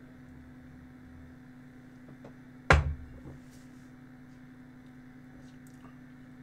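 A drinking glass set down on a desk with one sharp knock a little under three seconds in, over a steady low hum.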